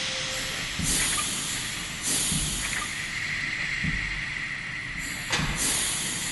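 Machine-room sound effect from the storybook app: hissing bursts like venting steam, starting about every second or so, over a low rumble with soft thuds.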